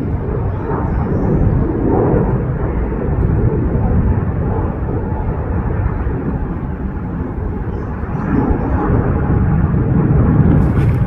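Jet airliner engines at takeoff power: a loud, low, continuous rumble with a faint steady whine. It eases slightly midway and builds again toward the end.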